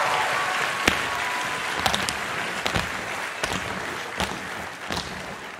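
Audience applauding, slowly fading, while tap shoes strike the wooden stage floor in single sharp clicks about once a second as the tap dancers walk off.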